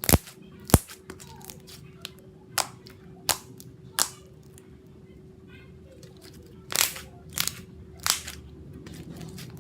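Air bubbles in a glossy hazy slime popping as it is squeezed and pressed: about eight sharp, irregular pops.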